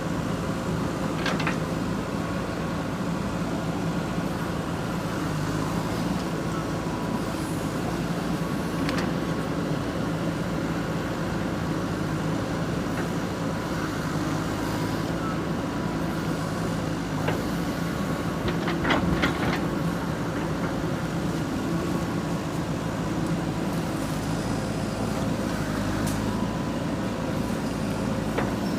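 JCB 3DX backhoe loader's diesel engine running steadily while it digs, with a few short sharp sounds from the working machine, a cluster of them about two-thirds of the way through.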